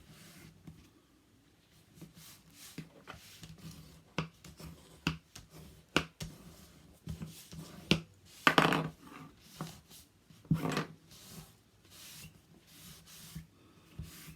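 Handmade scrapbook binder being worked on its hinges: covers flexed back and forth with rubbing and scattered light taps and clicks, and two louder scraping rustles about eight and a half and ten and a half seconds in.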